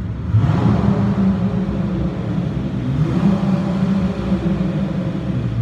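Dodge Charger SXT's V6 exhaust, fitted with an aftermarket turbine-style muffler, drives toward the microphone with a steady low drone. It grows louder about half a second in and swells again about three seconds in, echoing off the concrete of a parking garage.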